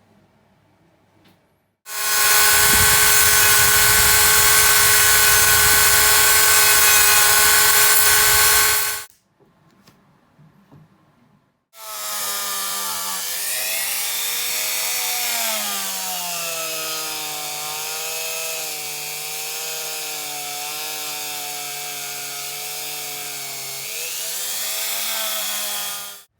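A small electric power tool runs twice. The first run is about seven seconds long at a steady pitch. The second, longer run has its motor pitch dipping and recovering as if under changing load, then rising again just before it stops.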